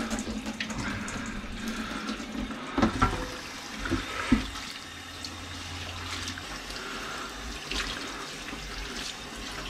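Kitchen tap running into a stainless steel sink as hands are washed and a chopping board is rinsed under the stream, with a few short knocks about three and four seconds in.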